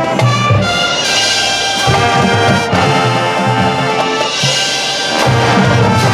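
Marching band playing loud, with the brass section holding sustained chords over a low line that pulses in short repeated notes.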